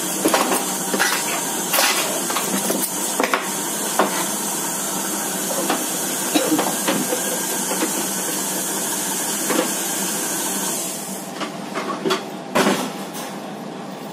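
A steady hiss that cuts off about eleven seconds in, under repeated light clicks and knocks of a metal batter scoop and baking trays being handled, with a louder knock near the end.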